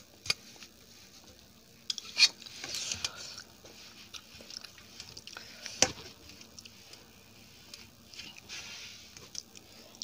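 Close-miked eating: soft chewing and biting noises with a few sharp mouth clicks, the loudest about two and six seconds in.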